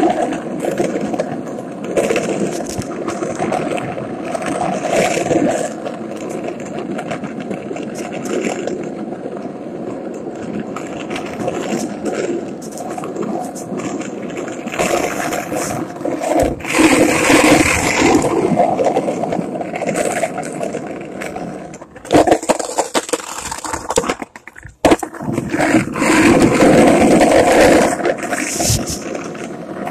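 Skateboard wheels rolling over pavement: a steady rumble that swells louder twice, with a few sharp clacks and a short lull about three-quarters of the way through.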